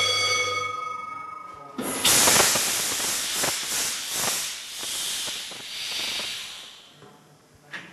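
Large six-cylinder diesel engine turned over on compressed air, with its cylinder valves open and no fuel injected, as a check for water or fuel in the cylinders. A steady whistling note of air comes first. Then, about two seconds in, comes loud hissing in pulses that slow and fade out.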